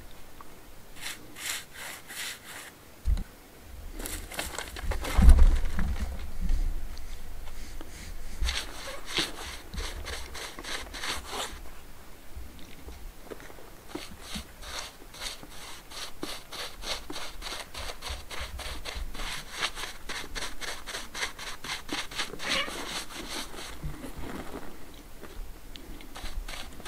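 A brush scrubbing sealer onto natural stone slabs in quick, repeated strokes, in bursts of a few seconds with pauses between. A low thump about five seconds in is the loudest moment.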